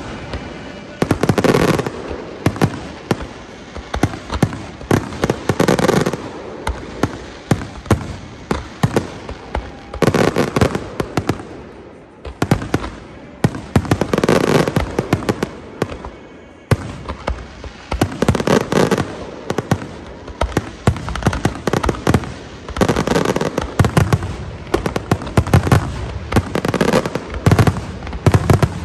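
Aerial fireworks display: a dense run of sharp cracks and pops, with a heavier boom about every four seconds as the larger shells burst.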